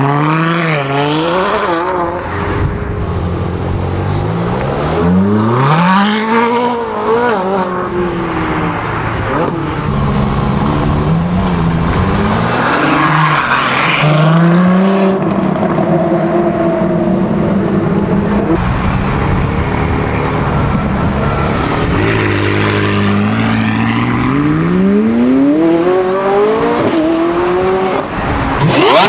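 Supercar engine revving and accelerating hard, its pitch repeatedly climbing and then dropping back.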